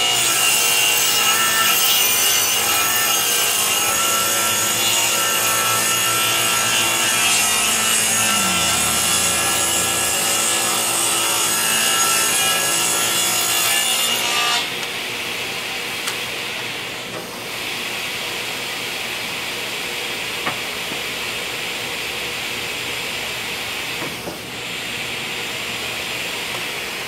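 Table saw ripping a long wooden board, a loud steady whine of the blade cutting. About halfway through, the cut ends abruptly and a quieter steady machine noise carries on.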